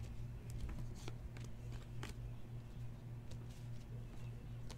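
A stack of Donruss Optic football trading cards being flipped through by hand, giving faint slides and small clicks as card slips past card, over a steady low hum.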